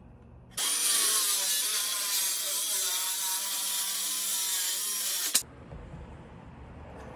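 Power tool cutting through wood: a loud, steady run of about five seconds that starts and stops abruptly, ending in a click.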